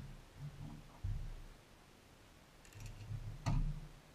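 A few dull thumps and knocks on the wooden deck of a floating dock, one about a second in and a sharper knock near the end with a few light clicks just before it.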